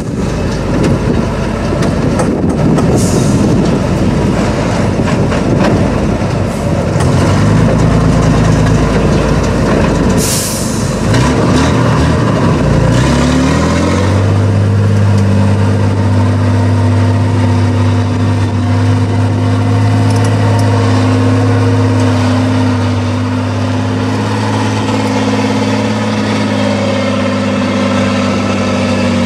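Tatra 813 8x8 trial truck's diesel engine labouring under load on a steep climb, with a short hiss about ten seconds in. A few seconds later the revs rise and then hold at a steady, even pitch.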